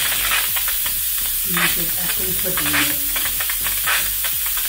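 Russell Hobbs electric pressure cooker's pressure valve venting steam in a loud, steady hiss with a rough, spluttering edge: the manual pressure release at the end of cooking.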